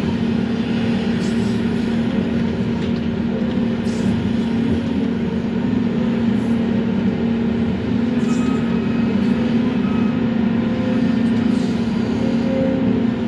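Volvo excavator's diesel engine and hydraulics running steadily, heard inside the cab, while the grapple rake works a pile of brush.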